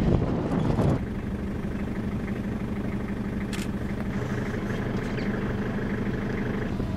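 Wind buffeting the microphone for about the first second, then cutting to an engine running steadily at idle with a low, even hum.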